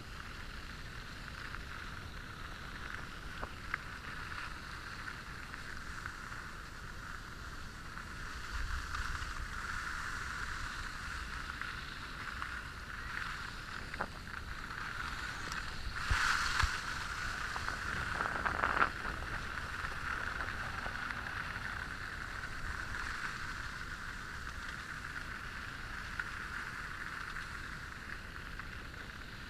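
Steady rush of skis sliding over groomed piste snow, mixed with wind on a helmet-mounted camera's microphone. It grows briefly louder twice, a little past the middle.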